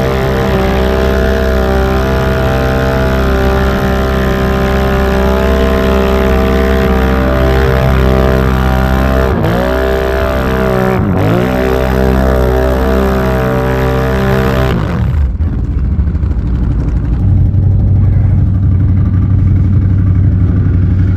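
Can-Am Renegade ATV's V-twin engine running hard at high, steady revs while pushing through deep snow, with two brief dips in revs about halfway through. A few seconds later the high revs drop away and it settles to a lower, steady drone.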